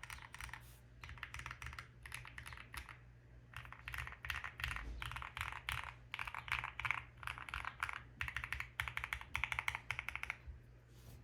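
Custom QwertyKeys QK65 mechanical keyboard with lubed and filmed C³Equalz Tangerine 67g linear switches on a POM plate and PBT keycaps, typed on fast in bursts with short pauses between; a thocky keystroke sound.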